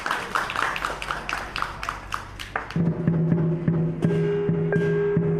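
Lion dance percussion: a drum and cymbals beating rapidly, about five strokes a second. About halfway through, this gives way to sustained ringing tones with a steady beat under them.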